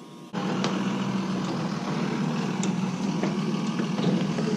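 An engine idling steadily, cutting in abruptly about a third of a second in, with a few light clicks over it.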